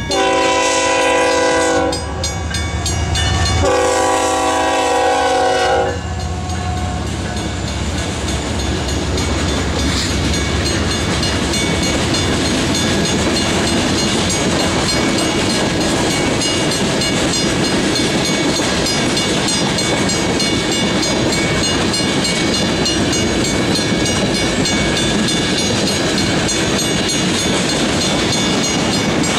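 A diesel freight locomotive's multi-note air horn sounds two blasts, the second a couple of seconds after the first. Then comes the steady rumble of a long freight train's cars rolling past, their wheels clattering on the rail joints.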